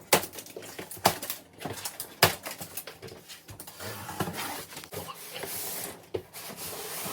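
Packaging being handled while a dishwasher is unboxed: scattered sharp knocks with rustling in between, the rustle growing about five to six seconds in.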